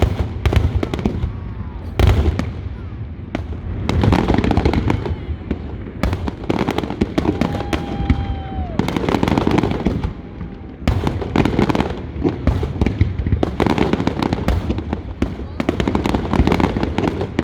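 Fireworks display going off in a rapid, dense string of bangs, booms and crackling pops.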